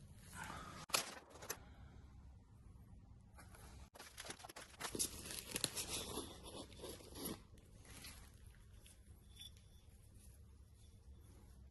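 Packaging being torn and handled during unboxing: tearing and crinkling with a few sharp clicks about a second in, busiest from about four to seven and a half seconds in.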